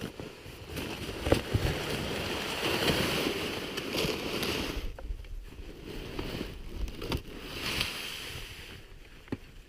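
Irregular swishing and crunching noise of movement through snow, swelling and easing, with dips about halfway through and again near the end.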